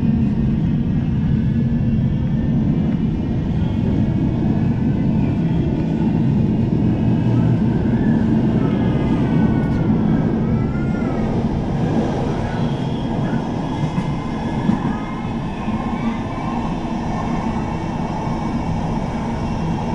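Manchester Metrolink tram heard from inside the passenger saloon, pulling away and running along the track: a steady rumble of wheels on rail and running gear. Around ten seconds in, as a tram passes the other way, a wavering whine rises and falls over the rumble.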